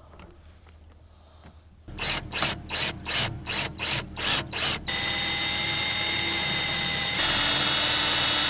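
Cordless drill with a stainless-steel bit boring a 4 mm hole into a stainless steel support post. It starts with a quick run of short bursts on the trigger, about three or four a second, then runs steadily with a steady whine, a little louder near the end.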